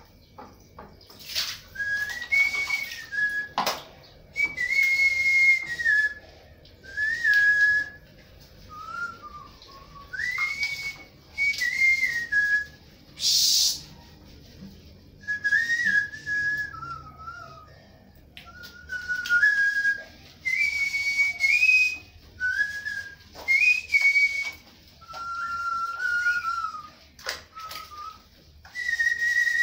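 A person whistling a slow, wandering tune in short phrases, the notes stepping up and down. Water splashes and drips in between as a guinea pig is washed by hand, with one sharper splash about halfway through.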